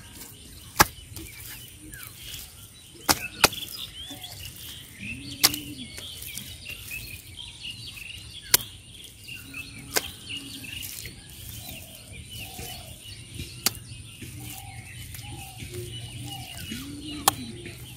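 Birds chirping throughout, with a few lower arched calls. About eight brief sharp slaps stand out every couple of seconds, in time with hands patting wet mud onto the wooden planks.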